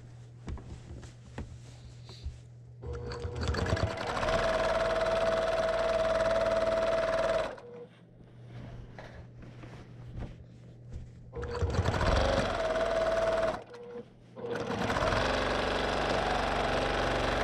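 Brother PQ1500SL high-speed straight-stitch quilting machine stitching in bursts during free-motion quilting. It starts about three seconds in and runs for about four seconds, then stops for about four seconds. It then runs twice more with a short break between. Light clicks come in the pauses.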